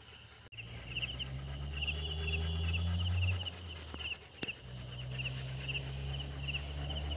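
Crickets chirping in short repeated pulses, about two a second, under a louder low steady drone that drops out for about a second midway, with a single click just before it comes back.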